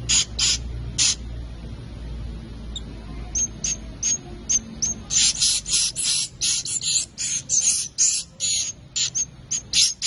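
Swiftlet chicks calling in the nest with short, raspy, high-pitched chirps. The chirps come scattered at first, then in a fast, dense run from about five seconds in until past eight seconds, then scattered again.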